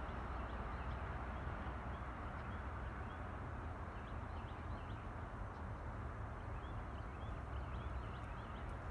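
Small birds chirping in quick, repeated short notes, busiest around the middle and again near the end, over a steady low background rumble.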